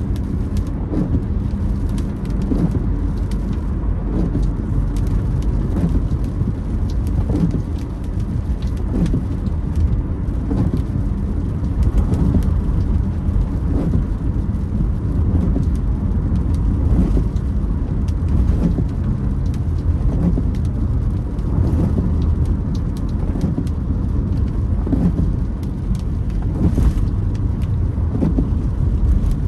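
Car cabin noise while driving in rain: a steady low road and engine rumble, with raindrops ticking on the windshield and the wipers creaking across the glass.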